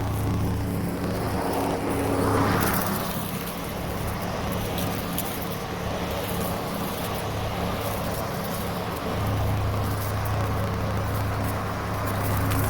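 Greenworks Pro 80V cordless electric lawn mower running as it cuts grass, a steady motor-and-blade hum that fades through the middle and grows louder again near the end as the mower moves about the yard.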